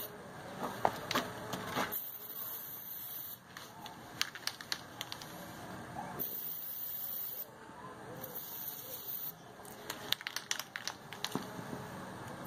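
Aerosol can of chain lube sprayed onto an ATV tire in three short bursts of hiss, with scattered sharp clicks and taps in between.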